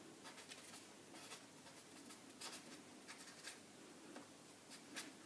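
Faint scratching of a pen writing on a paper pattern in short, scattered strokes.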